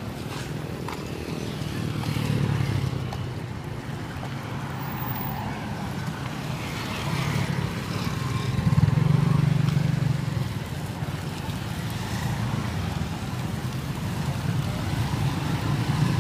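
Street traffic: engines of passing motor vehicles running as a steady low rumble that swells louder about two and a half seconds in and again around nine seconds in.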